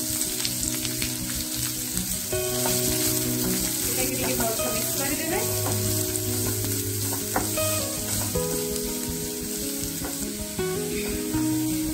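Chopped onion and green chilli sizzling in hot oil in a non-stick kadhai, stirred and scraped with a wooden spatula, under soft background music.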